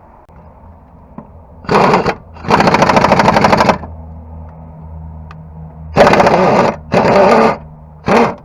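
Impact wrench hammering in five short bursts, the longest about a second, while undoing the brake caliper bolts.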